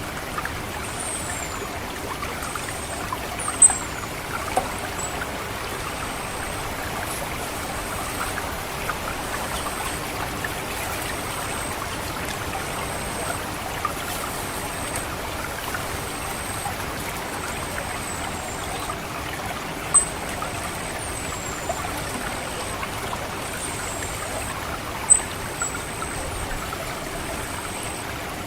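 Water trickling steadily through a rice paddy, with an orange-headed thrush's thin, very high 'ngecit' call notes repeated over it, some short downward slurs, others held level, a few sharper and louder.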